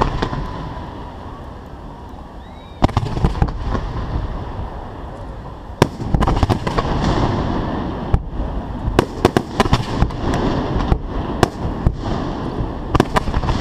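Fireworks display heard close to the launch site: a continuous rush and crackle of shells firing and burning, broken by sharp bangs, one about three seconds in, another near six, then clusters of cracks in the second half.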